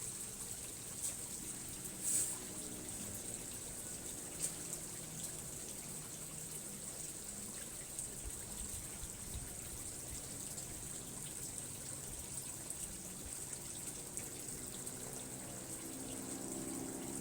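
Steady trickle of running water, with a few sharp clicks.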